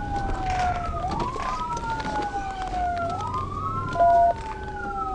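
Police car siren wailing, its pitch rising and falling in repeating cycles of about two seconds. A short, loud beep cuts in about four seconds in.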